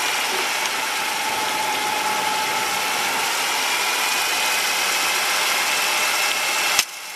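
A 3D-printed Pelton turbine spinning under water jets, driving a small 12-volt motor used as a generator: a steady hiss of spray with a faint whine that drifts slightly in pitch. The sound cuts off suddenly near the end.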